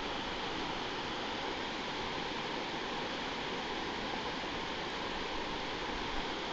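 The North Fork of the Stanislaus River running over rocks in shallow riffles: a steady, even rush of water.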